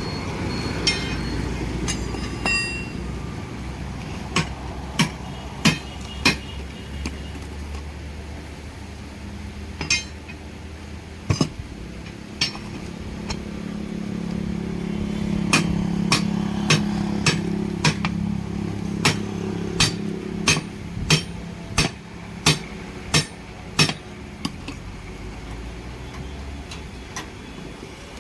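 Sharp metallic hammer blows on a steel truck-tyre rim, a few scattered at first, then a steady run of about a dozen strikes roughly every 0.7 s. This is the kind of hammering used to work a heavy truck tyre's bead free of its rim. A vehicle engine hums steadily underneath, louder in the middle.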